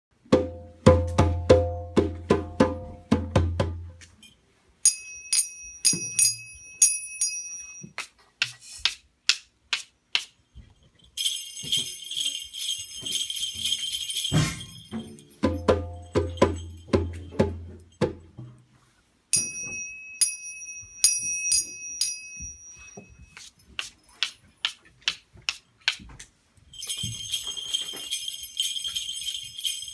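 Children's percussion piece played in turns, and the sequence comes round twice: a tall hand drum struck in a quick rhythm, then a few ringing strikes of finger cymbals, then dry tapping clicks on a small handheld box or block, then jingle bells shaken in a steady jingle.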